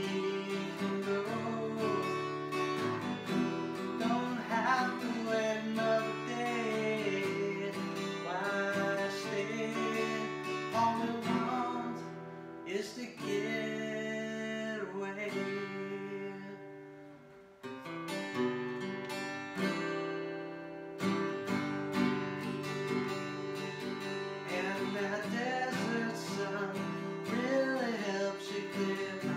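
A man singing while strumming an acoustic guitar. The voice drops out for several seconds in the middle while the guitar chords carry on, then comes back near the end.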